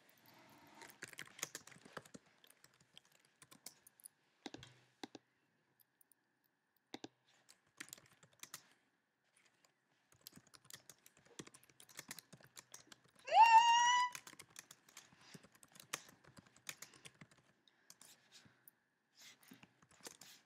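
Scattered clicks of typing on a laptop keyboard, with pauses between bursts of keystrokes. A little past halfway, one short, loud, high-pitched tone rises quickly and then holds for under a second.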